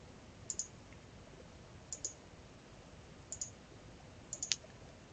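Computer mouse button clicking in four short bursts, each of two or three quick clicks, spaced about a second apart.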